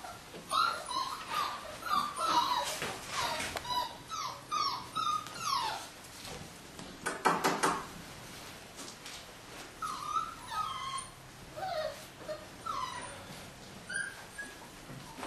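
Braque du Bourbonnais puppies whimpering and yipping in short, high, falling cries, a quick string of them in the first five seconds and fewer after, with one louder cry about seven seconds in.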